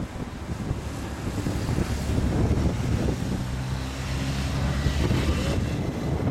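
Wind buffeting the camera microphone in an uneven low rumble, with a low steady hum joining in about halfway through.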